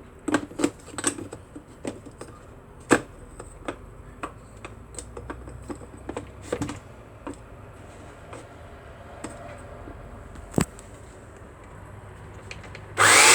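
Scattered sharp clicks and knocks of the Graef CM 702 coffee grinder's plastic parts being handled and seated by hand. Right at the end a much louder noise starts suddenly.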